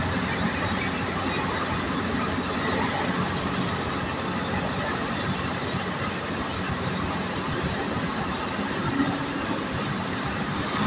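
Steady engine and tyre noise heard from inside a vehicle cruising on a highway.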